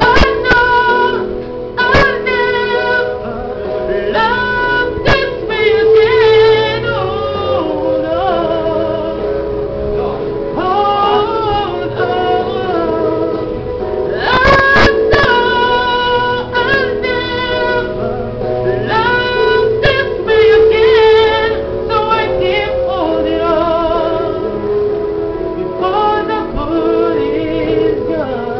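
Singing over instrumental accompaniment, the voice holding long notes with vibrato.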